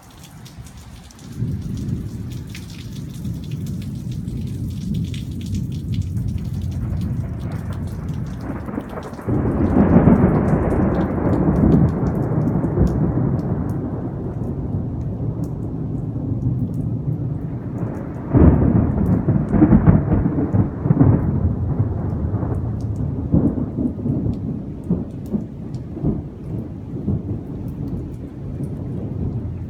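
Thunder rumbling on and off, with two loud claps about nine and eighteen seconds in, each rolling on for several seconds before dying away. Rain patters for the first several seconds, then fades.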